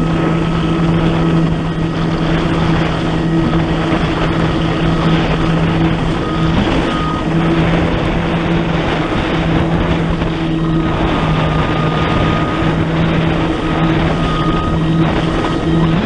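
The supercharged four-cylinder engine of a 2014 Kawasaki Ultra 300X jet ski, running at a steady cruising throttle with a constant drone. Under it are the rush of water off the hull and wind on the microphone.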